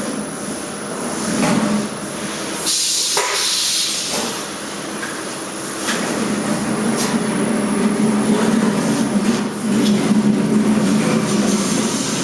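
Factory machinery running with a steady mechanical din. A burst of hissing, like an air blast, comes about three seconds in, a few knocks fall here and there, and a steadier low hum sets in from about halfway.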